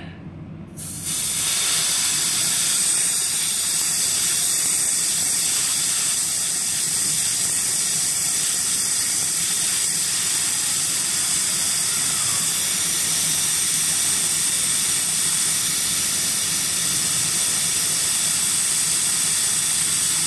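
Air hissing steadily out of a Chevy Avalanche tire's valve stem as the valve core is held pressed, starting about a second in. The tire is being deflated to trigger the tire-pressure sensor relearn.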